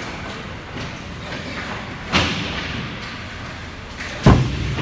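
Two thuds against the ice hockey rink boards, one about two seconds in and a louder, deeper one near the end.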